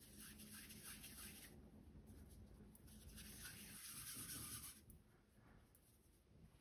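Faint rubbing of floured hands rolling a ball of potato and choux-pastry dough between the palms, in two strokes of about one and a half and two seconds.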